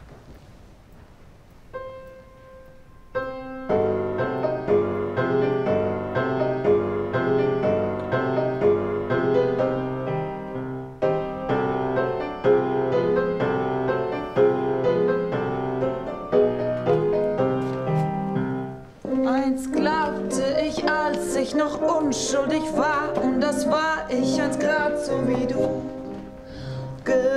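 Grand piano played: two single notes, then a flowing accompaniment from about three seconds in. About two-thirds of the way through, a woman starts singing over the piano.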